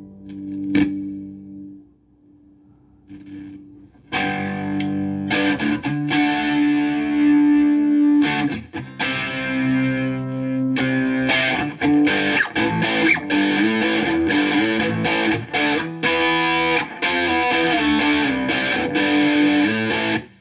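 Electric guitar played through a Marshall Valvestate VS100 amplifier with distortion. A held chord fades out, there is a short pause, and from about four seconds in, chords and riffs are played continuously until they stop suddenly near the end.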